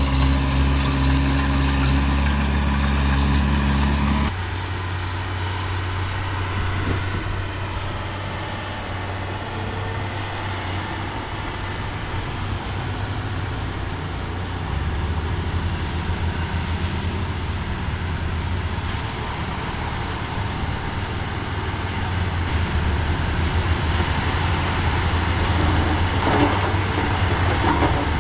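Heavy diesel engine of earthmoving machinery running steadily. The sound changes abruptly about four seconds in, and the engine note shifts again about halfway through.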